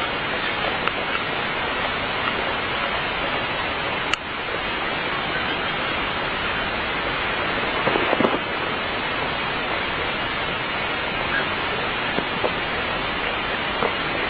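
A steady rushing noise, with a few faint clicks and a brief louder crackle about eight seconds in.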